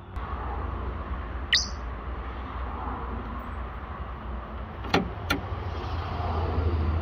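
Engine-driven DC welder generator running steadily with a low hum. Three sharp clicks cut through it, one about a second and a half in and two close together about five seconds in.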